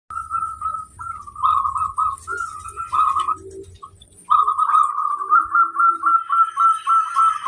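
Zebra dove (perkutut) cooing in two bouts of short repeated staccato notes. The second bout starts about four seconds in and comes as a faster, more even run of notes.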